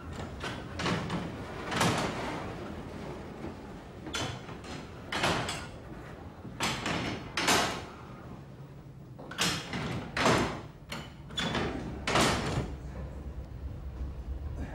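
Levers of a mechanical signal-box lever frame being pulled and pushed over, with about a dozen separate heavy metallic clunks and rattles as the catches and rods move.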